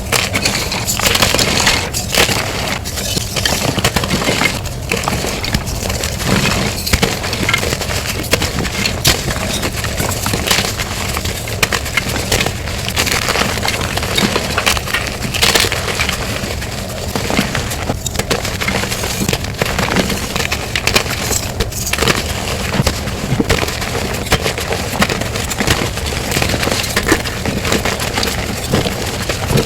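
Blocks of plain gym chalk being crushed and crumbled, a dense run of crunching and crackling with many small snaps.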